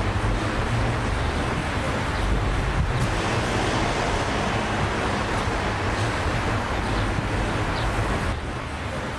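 Steady outdoor noise of distant road traffic with a low hum beneath, changing a little about three seconds in and dipping slightly near the end.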